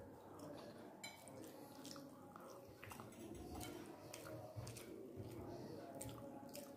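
Faint chewing and mouth sounds of someone eating rice with vegetable gravy by hand, with scattered small clicks.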